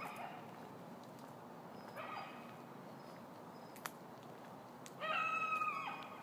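A lone coyote howling: two faint short calls, then about five seconds in a louder held howl of nearly a second that drops in pitch as it ends. A single sharp click comes between them.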